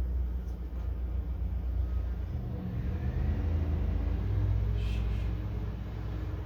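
Lawn mower engine running steadily with a low rumble, its pitch shifting a little partway through.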